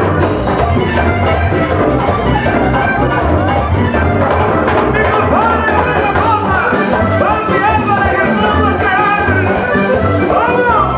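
Live vallenato band playing loud: button accordion carrying a wavering melody over electric bass, drum kit and scraped metal guacharaca.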